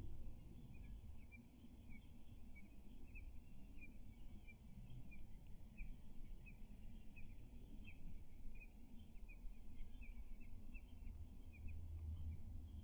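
Small bird chirping in a steady run of short, high, slightly falling notes, about three a second, over a constant low background rumble.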